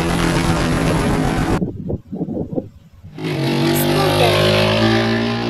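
Helicopter sound effect with rotor and engine noise, which stops about a second and a half in. After a short break, a motor-scooter engine sound effect starts and runs steadily.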